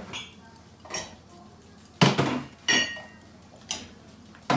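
Cups and glass tumblers clinking against each other and the wire rack as they are lifted out of a dishwasher's upper rack. About six sharp clinks and clatters, the loudest about two seconds in, one with a brief ringing tone.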